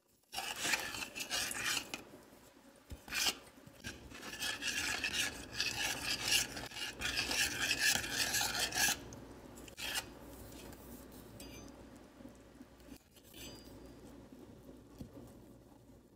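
Metal spoon stirring a saucepan of oats, milk and sliced banana, scraping and knocking against the stainless steel pan. The scraping is loudest for the first nine seconds, then goes on more quietly.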